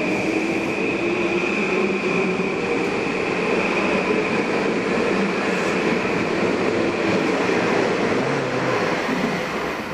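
Metro-North electric multiple-unit train running past the platform close by, its running noise carrying a steady high whine; the sound eases off near the end.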